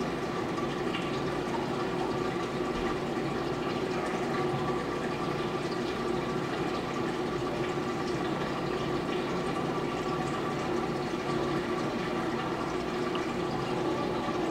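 Saltwater aquarium's circulation pump and filtration running: a steady sound of moving water with a constant hum.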